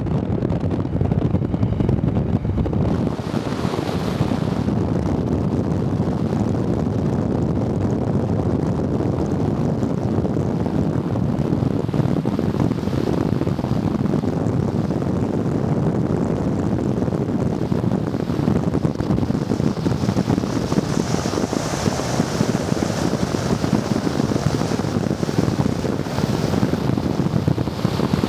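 Steady rumble of a moving vehicle, with wind blowing on the microphone.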